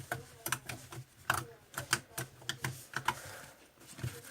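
Bubbly slime being squeezed and pressed by hand, making an irregular run of sharp clicks and pops.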